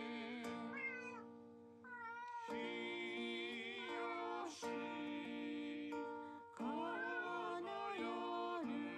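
A house cat meowing several times, a few seconds apart: the lonely crying of a cat left home alone. Recorded music with guitar plays underneath.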